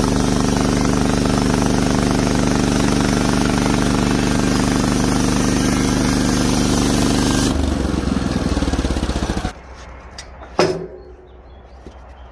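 Engine-driven sawmill running steadily under load while sawing through a larch board. About seven and a half seconds in its note drops and winds down, then stops abruptly, and a single sharp knock follows.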